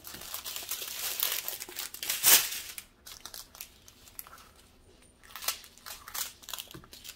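Small plastic zip-lock bags of square diamond-painting drills crinkling as they are handled, with a louder rustle about two seconds in, then quieter scattered rustles and clicks.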